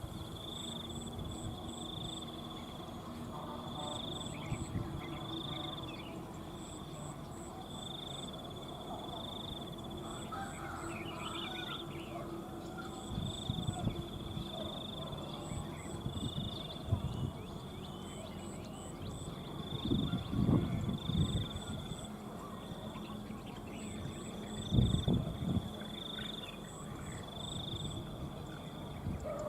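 Insects calling steadily: a high drone that swells about once a second, with quick triplets of very high pips repeating every second or two. Brief bird calls come in now and then, and two dull low bumps are heard in the second half.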